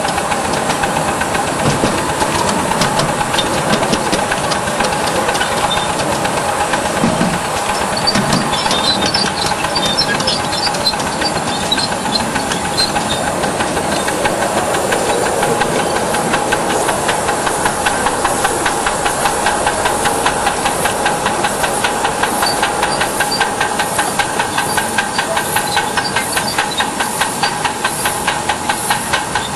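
Ride-on live-steam model locomotive running: a steady hiss of steam over a fast, regular chuffing beat, the beat growing more distinct near the end.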